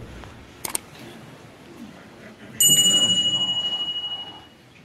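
A quick double click, then about two and a half seconds in a loud, bright bell-like ding that rings for about two seconds and fades. These are the click and notification-bell sound effects of a YouTube subscribe-button animation.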